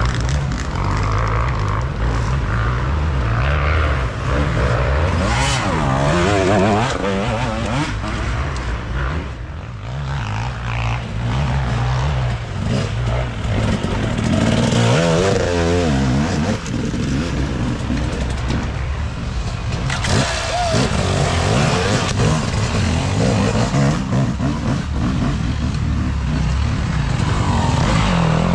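Off-road dirt bike engines running hard, revving up and down several times.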